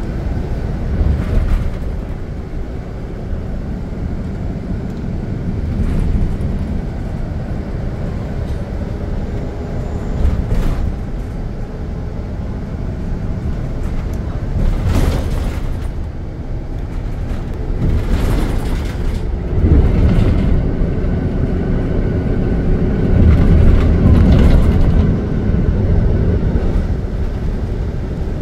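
Cabin noise inside a moving bus: steady low engine and road rumble, with louder swells of rushing noise now and then, loudest in the second half.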